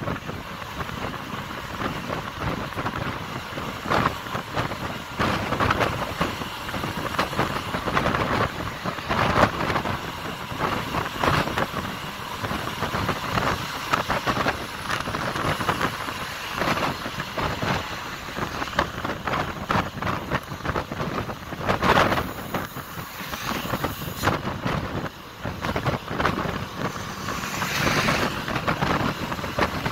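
Passenger coach driving at speed on a highway, heard from inside: a steady engine-and-road roar with frequent knocks and rattles from the body, swelling louder twice in the second half.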